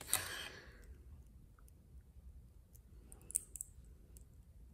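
Hands handling folded construction paper and tape: a brief rustle at the start, then a few faint clicks and taps.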